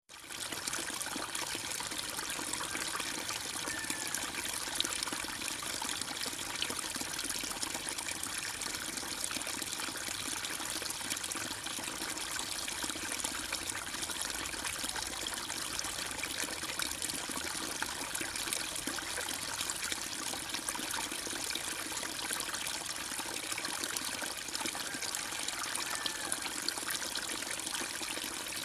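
Steady trickling and bubbling of water in a home aquarium, from its circulating water and rising air bubbles.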